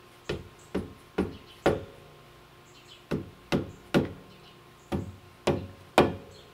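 Soft-faced mallet tapping a Shelby GT350's Brembo brake caliper while the brakes are bled, to shake trapped air bubbles loose. Ten sharp knocks, about two a second, in runs of four, three and three with short pauses between.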